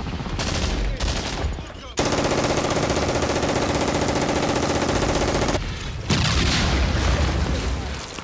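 Battle soundtrack of gunfire and blasts: a low rumble with scattered shots, then a long burst of very rapid machine-gun fire starting suddenly about two seconds in and cutting off abruptly some three and a half seconds later, followed by more loud blasts and rumble.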